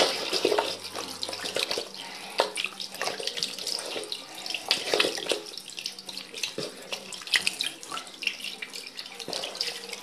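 Water running from a tap into a sink while a man splashes handfuls of it onto his face, rinsing off soap lather; steady running water broken by irregular splashes.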